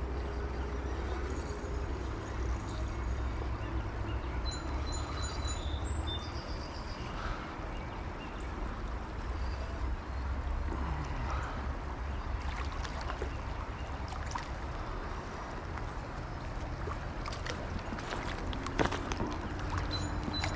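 Creek water flowing and splashing, with a steady low rumble of wind on the microphone and a few light clicks.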